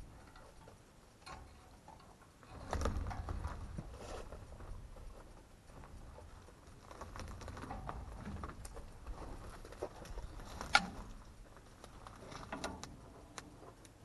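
Someone moving about and handling old wooden boards: scattered clicks, knocks and rustling, with a low rumble about three seconds in and one sharp knock near the end.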